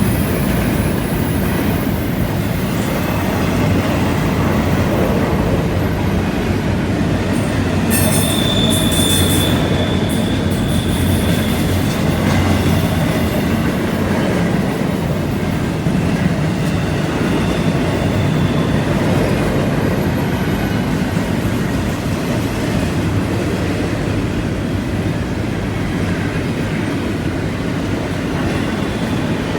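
Freight train cars of double-stack containers and autoracks rolling steadily past on a curve, with a continuous rumble of wheels on rail. About eight seconds in, a high wheel-flange squeal rises briefly as wheels grind through the curve.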